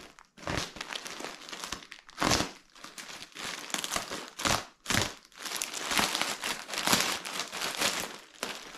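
Plastic mailing bag crinkling and rustling as it is handled and opened, in irregular loud crackles.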